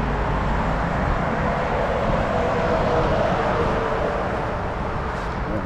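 Steady road traffic noise from cars on a wide city road, with one vehicle's whine passing in the middle; the rumble eases off a little near the end.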